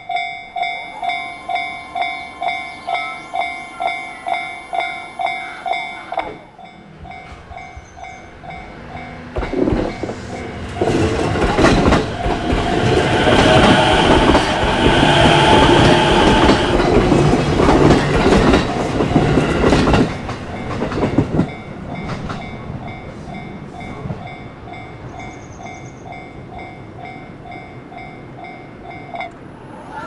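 Japanese level-crossing alarm ringing in a fast, even beat, about three strikes a second. It drops to a quieter ring about six seconds in and stops shortly before the end. Between about ten and twenty-one seconds in, a JR Ome Line E233-series electric commuter train passes through the crossing, louder than the alarm and loudest in its middle.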